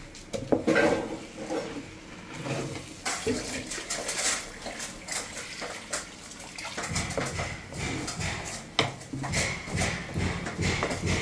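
Wooden spatula stirring rice and black-eyed beans in a metal pot, scraping and knocking against the metal. From about halfway the stirring is through added water, with wet sloshing and a repeating run of soft knocks.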